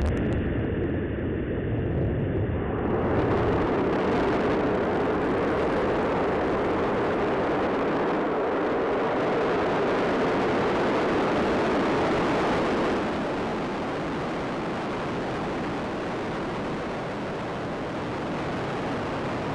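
Space Shuttle Atlantis launching: the continuous roar of its three main engines and twin solid rocket boosters through liftoff and climb-out. The noise swells a few seconds in and falls off somewhat about 13 seconds in as the shuttle climbs away.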